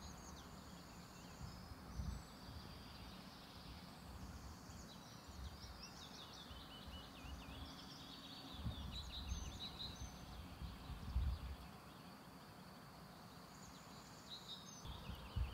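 Faint outdoor ambience: small birds chirping and twittering throughout, with a few brief low rumbles.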